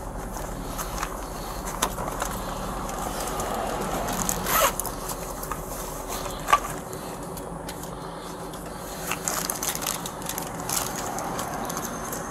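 Rustling, scraping handling noises with scattered clicks and a sharp knock about six and a half seconds in, as an officer searches through a vehicle. A low hum underneath stops about halfway through.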